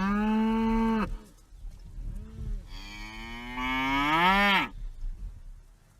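A cow mooing twice. The first long moo ends about a second in, and the second moo rises in pitch near its end before stopping.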